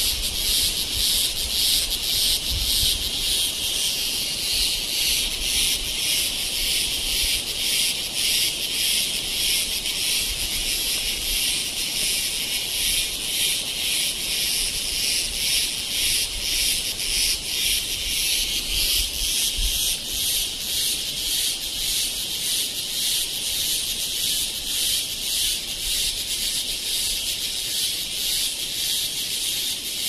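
Cicadas calling in chorus: a loud, high-pitched, shrill buzz that throbs rapidly and swells and fades in slow waves without stopping.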